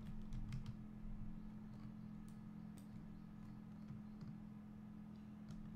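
Faint, scattered computer keyboard and mouse clicks over a low steady hum.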